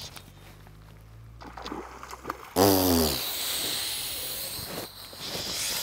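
A hooked trout thrashing and splashing at the water's surface as it is played in close to the bank, a hissing wash of spray that starts about two and a half seconds in. A short falling vocal exclamation comes just as the splashing begins.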